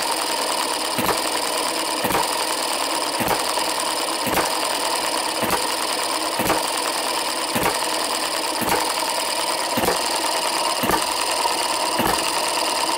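Microcosm M90 miniature hit-and-miss engine running, with a sharp firing pop about once a second over the steady whir and clatter of its spinning flywheels and gears. Softer governor springs hold it to about 45 to 49 hits a minute.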